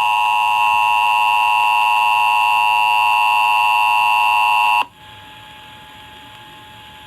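Emergency Alert System two-tone attention signal, a loud steady electronic tone broadcast over the radio, that cuts off suddenly about five seconds in, leaving faint hiss of dead air before the test announcement.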